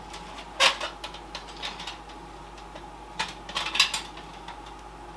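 Sharp clicks and knocks of an SSD and its screws being handled against a desktop PC case while the drive is fitted into its mounting: one loud knock about half a second in and a quick cluster of clicks around three and a half seconds in.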